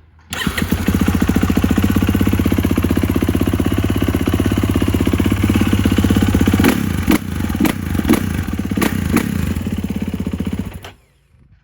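2019 Kawasaki KX450's single-cylinder four-stroke engine running at a fast idle, with several quick throttle blips in the second half, then cutting off suddenly near the end.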